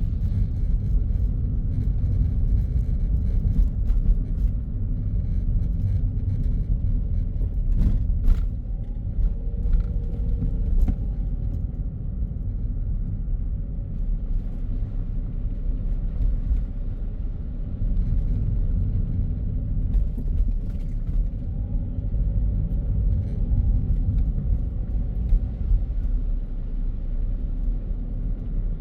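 Car driving on a city road: a steady low rumble of engine and tyre noise, with a couple of faint clicks about eight seconds in.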